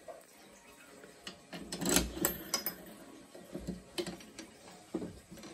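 Scattered mechanical clicks and knocks from handling a Silent Knight PS-DATK fire alarm pull station, with the loudest knocks about two seconds in.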